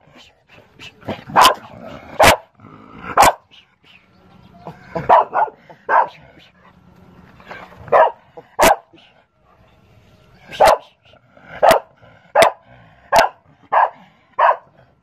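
A dog barking repeatedly: about fourteen short, sharp barks at uneven intervals, some coming in quick pairs.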